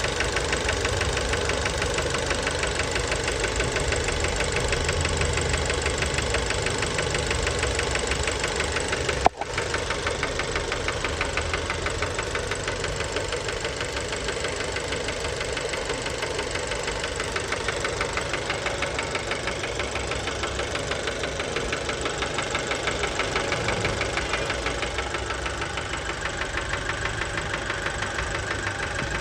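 Fiat Bravo 1.4 T-Jet turbocharged four-cylinder petrol engine running steadily with a fast, even knocking rattle, a worn connecting-rod bearing knock by the owner's later verdict. About nine seconds in the sound drops out for an instant with a click.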